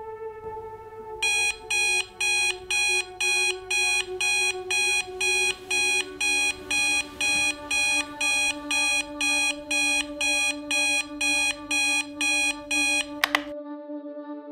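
Digital alarm clock beeping in a steady run of short high beeps, about two a second, for some twelve seconds. The beeping stops and a single sharp click follows.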